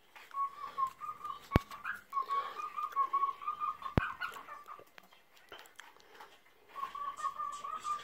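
Male cockatiel singing a wavering, whistle-like warble on a nearly steady pitch as he eats, in three stretches with a pause between the second and third. Two sharp clicks cut in, about a second and a half in and at four seconds.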